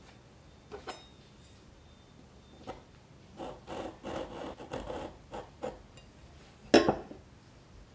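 Kitchen preparation sounds: a few light clicks, then a run of rubbing, scraping strokes over about two seconds, then one sharp knock near the end.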